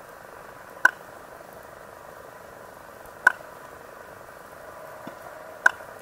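Adult mangrove whipray making three short, sharp clicks about two and a half seconds apart, over a steady underwater hiss. The clicks are apparently made by a rapid movement of the jaw or head and the spiracles, and likely serve as a warning or defence signal.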